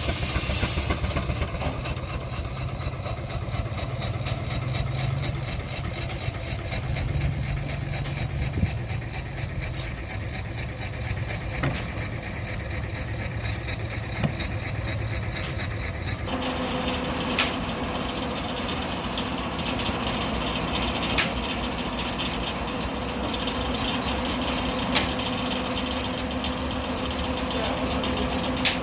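Belt-driven sawmill powered by a steam traction engine, running steadily. About halfway through the sound changes abruptly and a steady hum comes in, with a few sharp knocks every few seconds.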